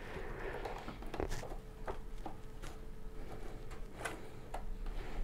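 Scattered light clicks and soft scraping as a length of gauge 0 model railway track is pressed and nudged into line against a spirit level.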